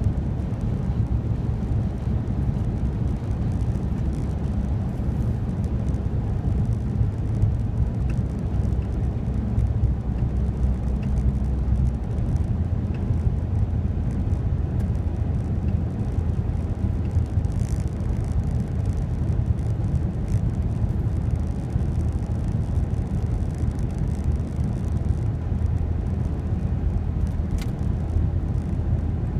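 Car engine and tyres heard from inside the cabin while driving on a snow-covered road: a steady low drone with tyre noise, and a single short click near the end.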